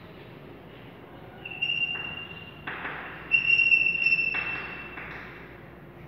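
Chalk writing on a blackboard: scratchy strokes, with two steady high squeals of the chalk, the second louder and longer.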